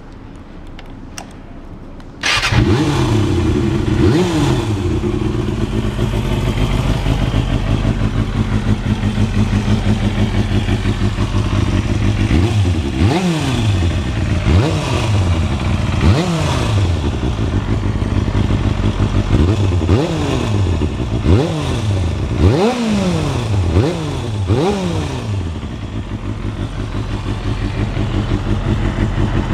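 Kawasaki Balius 250's four-cylinder engine, breathing through a Tecserf aftermarket silencer, starts about two seconds in and idles steadily. Through the middle it is revved in a string of about ten quick throttle blips, each rising and falling sharply, then settles back to idle.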